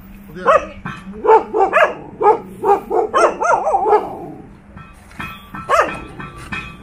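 Dog barking in a fast string of sharp barks, about two to three a second, then a pause and one more bark near the end, as a large leashed dog and loose dogs square off. Background music comes in during the second half.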